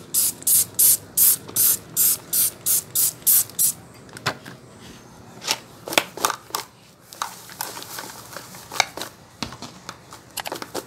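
Hand trigger spray bottle squirting in quick, even pumps, about three a second, stopping about three and a half seconds in. Afterwards, scattered light clicks and rustles as the plastic basin and dry plant stems are handled.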